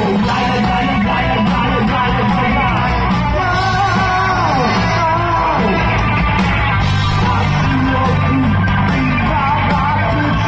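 Live rock band playing: a male vocalist singing and shouting into a microphone over electric guitar, electric bass and drums.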